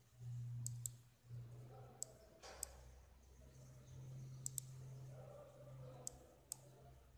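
Mouse buttons clicking as the phone's on-screen pointer is worked: about eight short, faint, sharp clicks, some in quick pairs, over a low steady hum.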